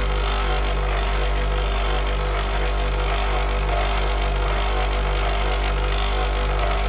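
Just Wood electric leather edge burnisher running with a steady hum, its turned wooden wheel spinning while a wet leather edge is pressed and rubbed against its groove to burnish it.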